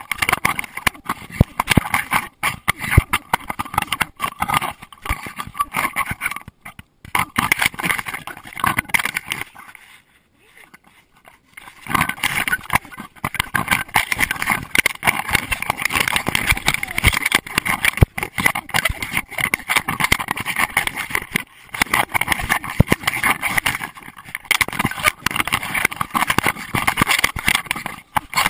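Rapid, irregular knocking and rubbing from a GoPro Hero2 in its waterproof housing, jostled as it rides on a running dog. The noise drops away for about two seconds partway through, then resumes.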